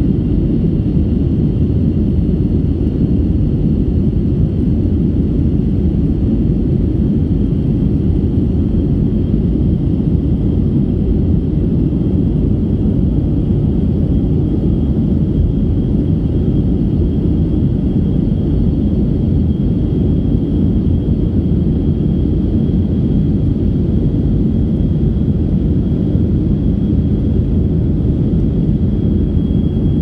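Airliner cabin noise in flight: the engines and rushing air make a steady, loud low rumble heard from inside the cabin, with a faint, steady high whine above it.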